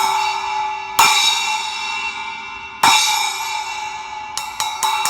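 Zildjian 8-inch K splash cymbal struck three times, each hit ringing out, then a quick run of lighter taps near the end. The cymbal has keyholing, a crack spreading around its centre hole, and is not yet repaired.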